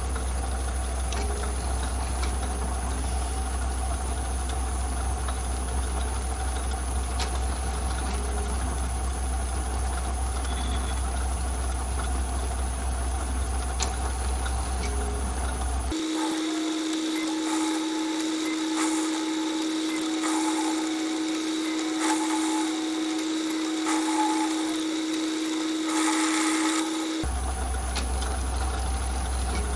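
Small metal lathe running while it turns a taper under electronic leadscrew control: a steady low motor hum with a thin high whine. About halfway through the sound switches abruptly to a steady mid-pitched whine with faint ticks, then switches back near the end.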